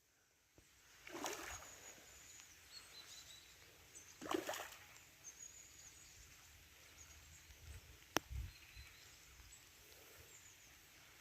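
Quiet lakeside outdoor ambience with faint high bird chirps, two soft swishes about one and four seconds in, and a single sharp click near eight seconds.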